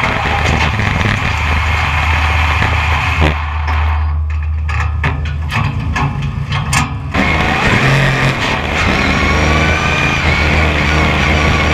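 BriSCA F1 stock car's V8 engine running at low speed and idling, heard from on board. From about 3 to 7 s the sound goes muffled with a few clicks, then the revs rise briefly about 8 s in and settle back to a steady running note.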